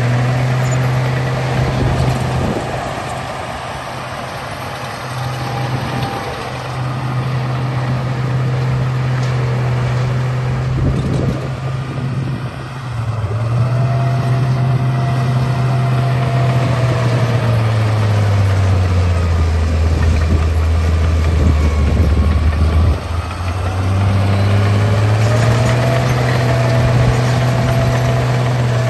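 Bulldozer engine running steadily under load. Its pitch sinks lower for several seconds past the middle, then rises back, with a few brief knocks along the way.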